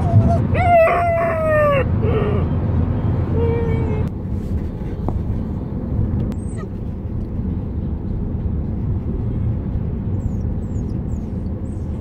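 Young Magyar Vizsla whining in the back of a car: one long whine falling slightly in pitch, then two shorter, fainter whines by about four seconds in. After that only the steady low rumble of the car driving is heard.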